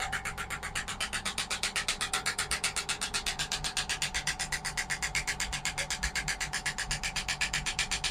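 Radial shockwave therapy device firing a rapid, even train of sharp clicks, about a dozen a second, over background music.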